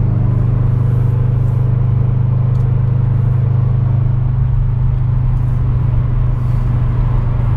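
Subaru BRZ's flat-four engine running at a steady cruise, a constant low drone with road noise, heard from inside the car.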